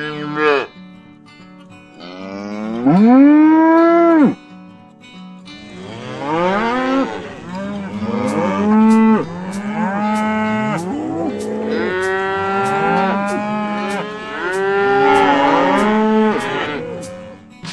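Domestic cows mooing: one long moo about two seconds in, then several cows lowing over one another, their calls overlapping at different pitches.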